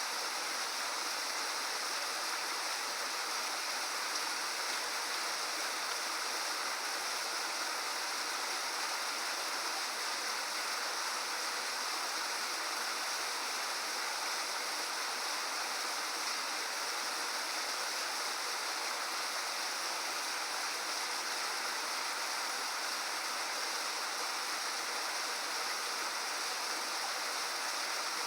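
Steady rush of water falling down an 18 m waterfall, an even, unbroken hiss of spray and splashing.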